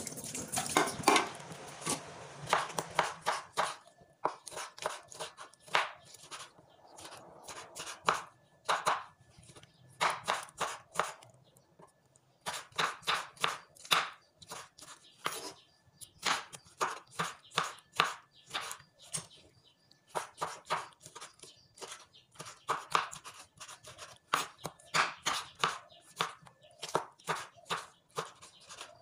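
Kitchen knife chopping tomatoes on a wooden cutting board: runs of quick strikes of the blade on the wood, with short pauses between runs.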